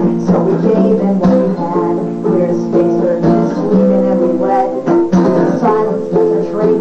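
Acoustic guitar strummed steadily through chords in a lo-fi live recording of a folk-punk song.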